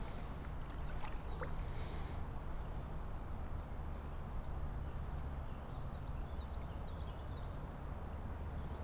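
Steady low rush of river water, with a small songbird singing short runs of chirping notes about half a second in and again around six seconds in.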